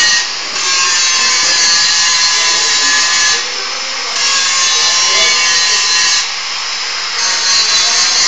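Handheld angle grinder grinding a steel pipe: a steady, loud, high-pitched grinding hiss that dips briefly three times.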